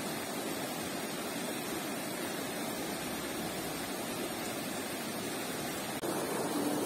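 Rushing mountain stream running fast over rocks: a steady, even rush of water, a little louder from about six seconds in.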